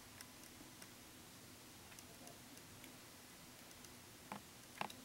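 Near silence: quiet room tone with faint scattered ticks, and two short soft clicks near the end.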